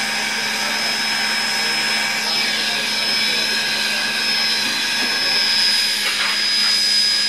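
BB18¼ class 4-6-2 steam locomotive standing with steam up, giving off a steady hiss of escaping steam with a thin high whistling tone and a low steady hum underneath.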